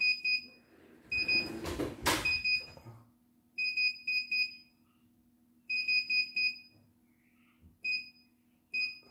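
Button beeps from a CNY E900 embroidery machine's control panel as its keys are pressed to scroll through design files: short high beeps, some single and some in quick runs of two to four. About two seconds in there is a burst of rustling with a sharp knock.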